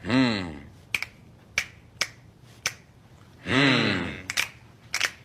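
Sharp clicks, roughly two a second and not quite evenly spaced, with twice a short sound falling in pitch, at the start and about three and a half seconds in.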